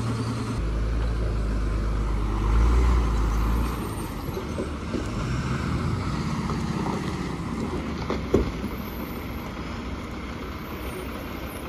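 Diesel engine of a heavy goods lorry running, with a deep rumble that is loudest for the first few seconds and then eases. A single sharp knock about eight seconds in.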